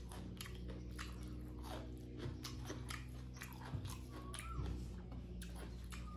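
Close-miked chewing and wet mouth clicks of a man eating a mouthful of rice and vegetables by hand, with fingers squishing rice on the plate, over a steady low hum.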